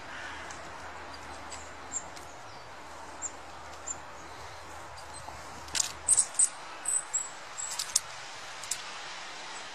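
Small songbirds at a feeding spot giving short, high, thin calls over a steady background hiss, with a run of loud, sharp chirps close by from about the middle to near the end.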